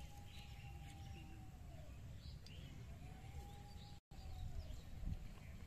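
Outdoor ambience: birds chirping here and there over a low rumble. A long steady mid-pitched tone, like a distant drawn-out call or horn, is held for about two seconds at the start and again a little past three seconds in. The sound cuts out for an instant about four seconds in.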